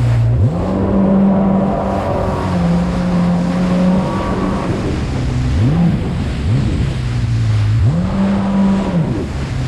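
Jet ski engine revving up and down as the throttle is opened and eased off repeatedly, its pitch climbing sharply and falling back several times, over the rush of water and wind.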